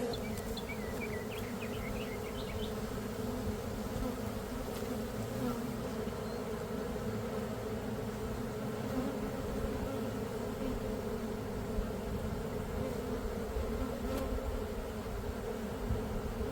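Steady hum of a swarm of honeybees flying around the entrance of a hive they have just been moved into.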